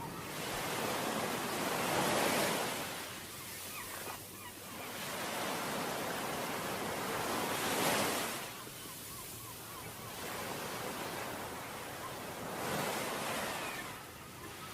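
Surf on a beach with wind: waves swelling and breaking three times, each rush building and then washing back down.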